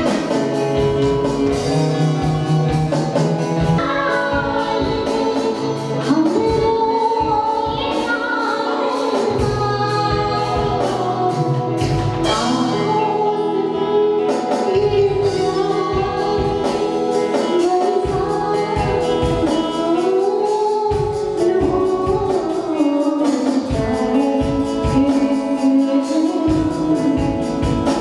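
A woman singing a melody into a handheld microphone, amplified, backed by a live band with drums and keyboards keeping a steady beat.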